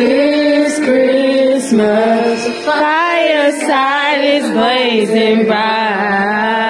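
A person singing into a handheld karaoke microphone, holding long notes that waver in pitch, with short breaks between phrases.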